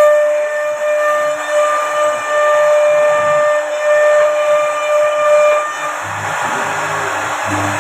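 CNC router spindle whining at a steady high pitch while its bit cuts wood, with a hiss of cutting noise. The whine fades out about two-thirds of the way through and comes back near the end.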